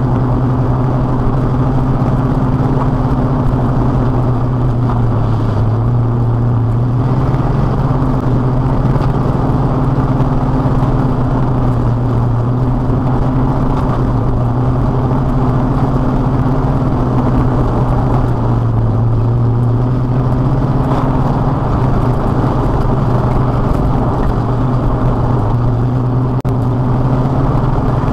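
Old farm truck's engine and exhaust droning steadily at cruising speed, with road noise under it. The engine pitch sags and recovers slightly a couple of times.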